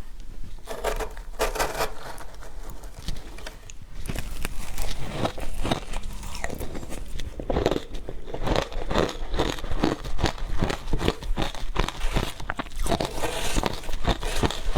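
Close-miked biting and crunching of frozen matcha ice, a dense run of crackly crunches that grows busier about four seconds in.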